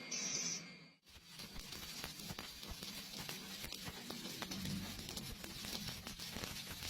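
Electric welding arc crackling and sizzling steadily, a dense run of irregular sharp clicks, starting after a brief cut-out about a second in.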